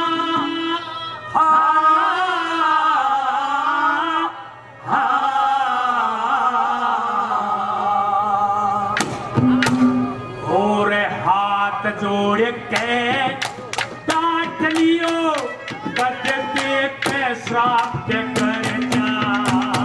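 A man singing a Haryanvi ragni live into a microphone, with long held, wavering notes. About nine seconds in, quick drum strokes join the singing.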